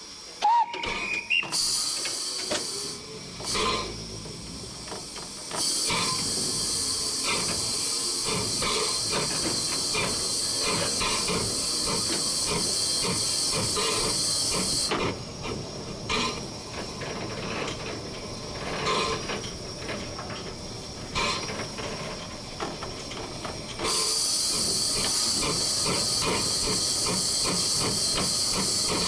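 Steam hissing from a 1925 La Meuse steam locomotive, heard from its cab. The hiss comes in long stretches and drops away for about nine seconds in the middle, over irregular rattling and knocking of the moving engine. There is a short rising squeal about a second in.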